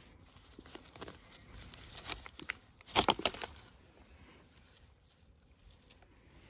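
Stacked thin plastic plant pots clattering as they are nosed and handled: a few light knocks about two seconds in and a louder cluster of knocks and rattles around three seconds in.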